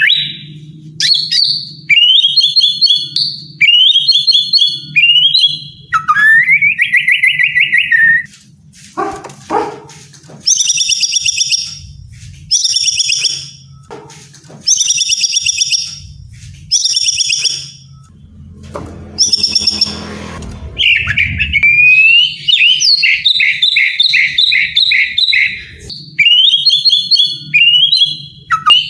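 White-rumped shama singing a varied, repeated song. It opens with a few rising whistled phrases, then gives five quick high trills, a harsh rasping call about twenty seconds in, and a long fast rattling phrase near the end.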